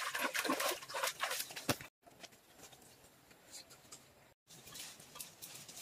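Hands splashing and scrubbing in shallow stream water for about two seconds, then it cuts off suddenly; the rest is much quieter, with a few faint scattered ticks and rustles.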